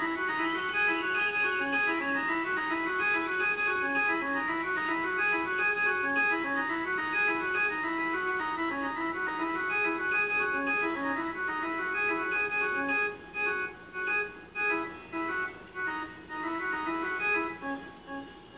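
Electronic techno track with a fast, repeating organ-like synth melody. Towards the end the sound is chopped into rhythmic pulses, cutting in and out several times.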